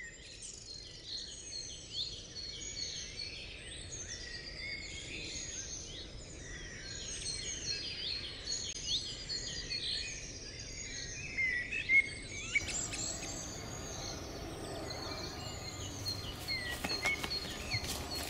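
Many birds singing and chirping over a low outdoor hiss, their calls overlapping. About two-thirds of the way in the background hiss suddenly grows fuller. Near the end a series of sharp clicks or knocks begins under the birdsong.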